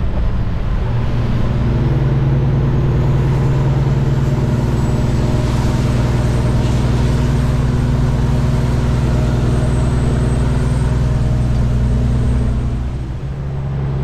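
Kenworth W900 semi-truck's diesel engine droning steadily under way, heard from inside the cab, with road noise. The engine note firms up about a second in and eases off briefly near the end.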